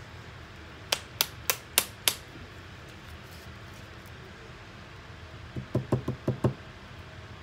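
A small plastic acrylic craft paint bottle being handled: five sharp clicks about a third of a second apart as it is shaken, then near the end a quick run of about six duller knocks.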